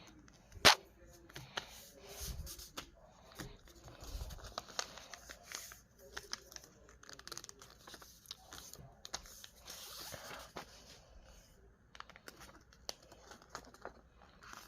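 A sheet of paper being folded and creased by hand, with irregular crinkling and rustling and a sharp click a little under a second in.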